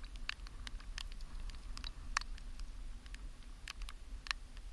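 Irregular light ticks and clicks, a few a second, over a steady low rumble.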